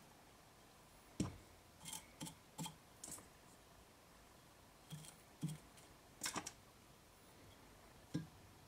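Faint, irregular small clicks and rustles of fingers handling a peacock sword feather and tying thread at a fly-tying vise, about nine light taps spread over several seconds.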